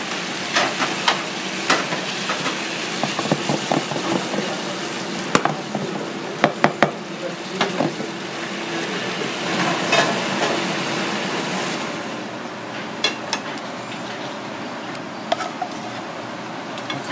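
Chili sauce sizzling and bubbling in a nonstick frying pan, stirred, with sharp clicks and knocks of a utensil against the pan. It turns quieter about twelve seconds in, leaving scattered clicks.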